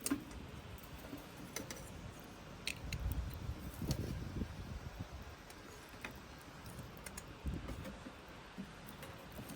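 Scattered sharp clicks and a few dull knocks over a low, uneven rumble, as from a small wood fire crackling in a camp stove.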